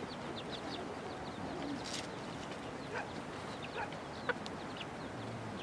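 Small birds chirping and a hen clucking, over a steady background hiss, with a few light clicks, one sharper about four seconds in.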